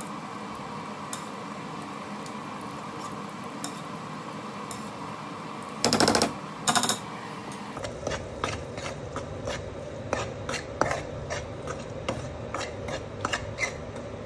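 Steel spatula scraping and clicking against a steel kadai as wheat flour is stirred and roasted in ghee, a quick run of short scrapes through the second half. Before that, a steady low hum and a brief loud clatter about six seconds in.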